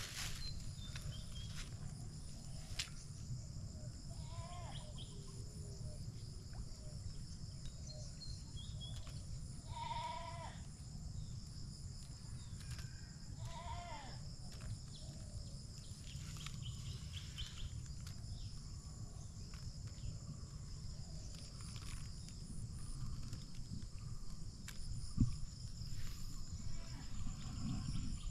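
Three short animal calls, a few seconds apart in the first half, over a steady high-pitched hum and a low rumble.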